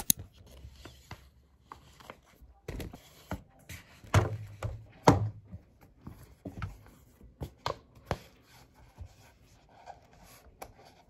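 Hands tidying a wooden desk: irregular light knocks and taps with short rustles of paper and plastic as a tablet in its case is picked up, slid and set down. The loudest knocks come midway.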